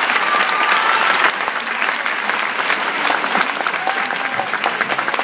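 Audience applauding, steady dense clapping that eases slightly after the first second or so.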